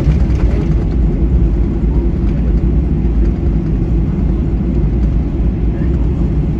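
Steady low rumble of a Boeing 737-800 heard from inside the passenger cabin.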